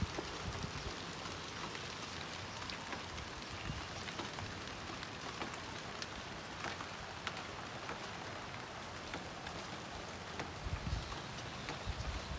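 Steady rain falling on a terrace garden, a continuous hiss with scattered drop ticks on leaves and pots. A few low thumps near the end.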